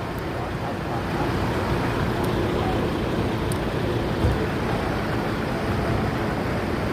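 Harapan Baru bus's diesel engine running with the deep 'ngorok' (snoring) rumble of its modified exhaust as the bus pulls away, with a brief low thump about four seconds in.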